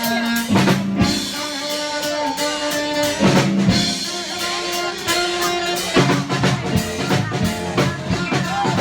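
A live band playing: drum kit with snare, rimshots and bass drum keeping a steady beat under held instrumental notes and a moving bass line.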